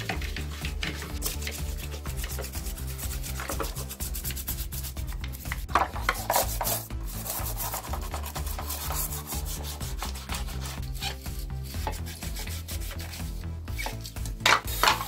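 A stiff bristle brush scrubbing the plastic housing of a cordless drill in a wet sink, in rapid back-and-forth strokes, with water running from the tap.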